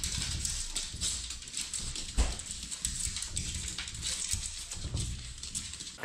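Two small dogs jumping up and pawing at a glass-panelled door: a rapid, irregular clicking and scratching of claws on the glass and the door. There is a single louder thump about two seconds in.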